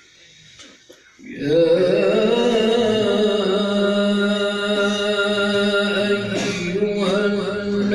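A man begins reciting the Quran (tilawat) in a drawn-out melodic style about a second and a half in, holding one long note with slow ornamented turns.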